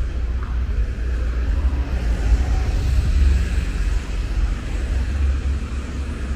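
Steady, loud low rumble of outdoor city street noise, with traffic and wind on the microphone; it swells a little about halfway through.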